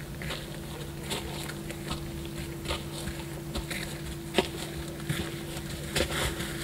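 A Lusitano stallion's hooves and a handler's footsteps on gravelly ground as the horse is led at a walk: irregular scuffs and clicks, the sharpest about four and a half seconds in, over a steady low hum.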